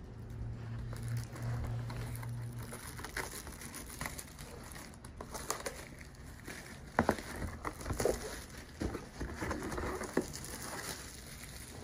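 Cardboard and plastic packaging being handled and opened: rustling and crinkling of a boxed corrugated-cardboard cat scratcher's glossy printed sleeve, with scattered sharp taps and clicks from fingers and the box, the loudest about halfway through.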